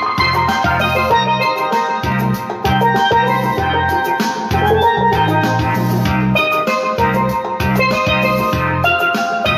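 Chrome steelpan struck with mallets, playing a quick melody of ringing notes, over a steady low bass line and drum beat.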